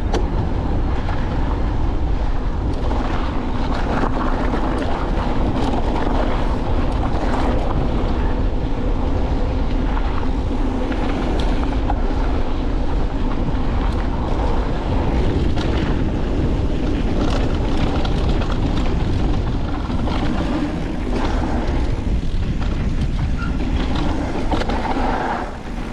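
Wind buffeting the microphone and tyres rolling over a dirt and rock trail during a fast mountain bike descent, with frequent small knocks and rattles from the bike. The rush eases a little near the end.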